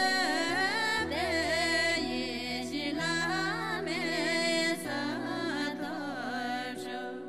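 A Buddhist devotional song sung in Tibetan: an ornamented, wavering vocal melody over a sustained instrumental backing.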